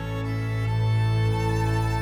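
Background music: slow, sustained strings with a violin melody over a held low note.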